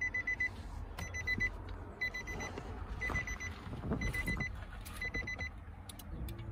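Car warning chime of a 2017 Nissan X-Trail beeping about once a second, each time a half-second run of rapid high beeps, sounding with the ignition switched off.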